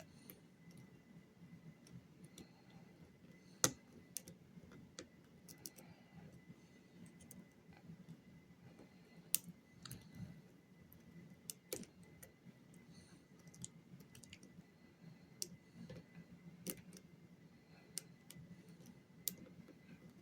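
Faint, irregular clicks and ticks of a lock pick and tension tool working inside a lock, with a few sharper clicks scattered through.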